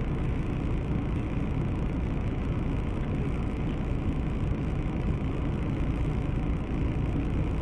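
Steady low rumble and hiss of car noise picked up by a dashcam inside a vehicle, at an even level throughout.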